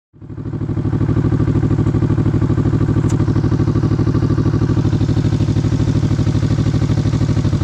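Kawasaki Vulcan S's 649 cc parallel-twin engine idling steadily with an even pulse. The engine is running while the charging system puts about 14.5 volts onto the accessory leads from the stator.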